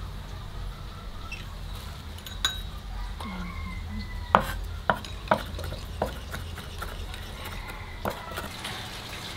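Cleaver chopping red chilies and garlic on a wooden chopping board: a handful of sharp, irregular knocks, with a metal spoon tapping and scraping.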